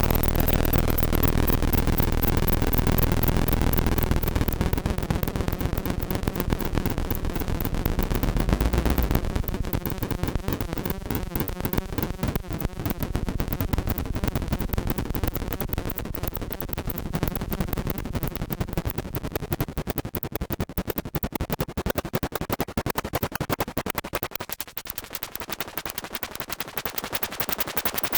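Behringer Crave analog synthesizer playing a harsh, noisy patch made of very rapid pulses. A deep bass part drops out about nine seconds in, and the sound thins and softens briefly near the end before building again.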